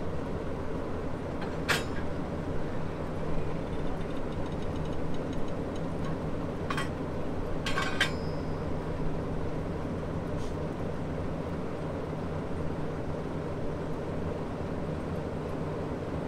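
Diesel-electric locomotive NSU 52 idling steadily, its diesel engine giving a constant low hum. A few sharp metallic clinks cut in about two, seven, eight and ten seconds in.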